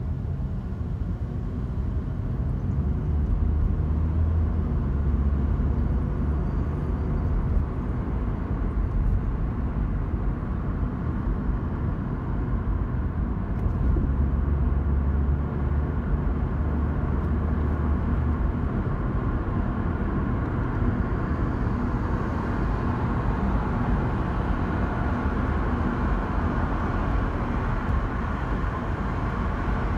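Car driving, heard from inside the cabin: a steady low engine and road rumble that swells twice, with tyre hiss on the road growing louder over the second half.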